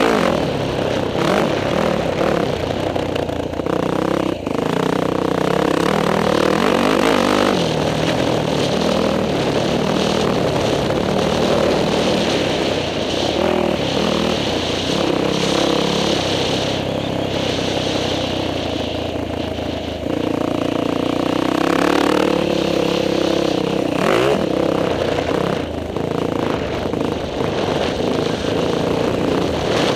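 Dirt bike engine revving up and falling off again and again as the rider accelerates and shifts around the motocross track, heard from a helmet camera. A couple of sharp knocks come through, about four seconds in and again near twenty-four seconds.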